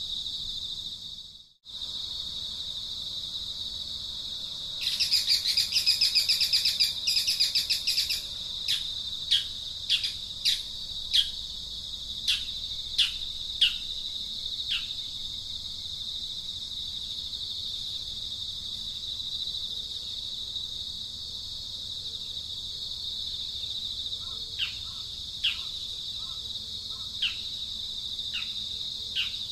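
Outdoor ambience: a steady high-pitched insect drone, which drops out briefly near the start. About five seconds in comes a few seconds of rapid buzzy chattering. After it, a bird gives short calls that slide downward, about one a second, then pauses and calls again near the end.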